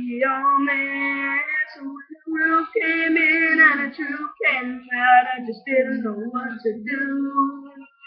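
A teenage boy singing an R&B pop song unaccompanied, in long held notes that bend and waver, with short breaks between phrases.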